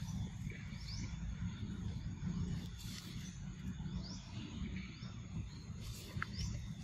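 Outdoor ambience: a steady low rumble with three short, high rising chirps, about a second, four seconds and five and a half seconds in.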